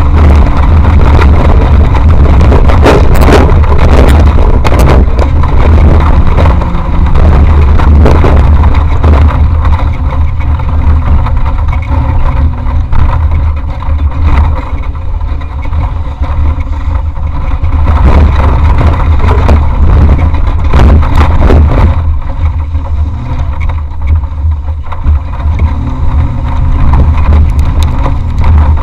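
Off-road race vehicle running hard over rough ground, heard from a camera mounted inside it: a loud, heavy engine and drivetrain rumble with repeated knocks and rattles from the body. It eases a little in level for stretches in the middle and later on.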